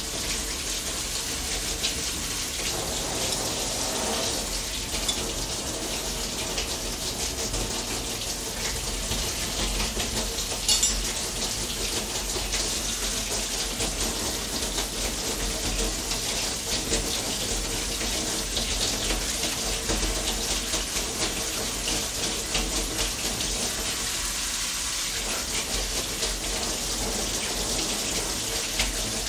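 Kitchen tap running steadily into the sink while raw beef is rinsed under it to wash out the blood, with a brief knock about eleven seconds in.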